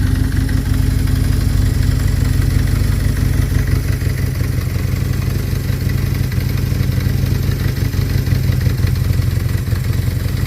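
Motorcycle engine idling steadily, warming up after standing unused for a while.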